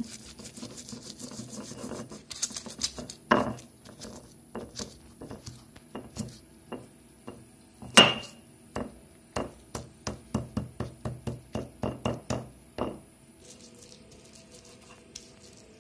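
Stone pestle crushing and grinding red chillies, garlic, salt and kencur in a stone mortar: sharp stone-on-stone knocks mixed with rubbing strokes, the loudest knock about halfway through. It then settles into quick, even pounding at about three strikes a second before going quiet near the end.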